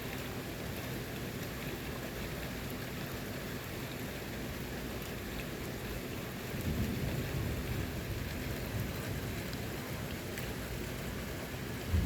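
Steady rain falling, with a low rumble of thunder rising a little over halfway through and fading over a few seconds.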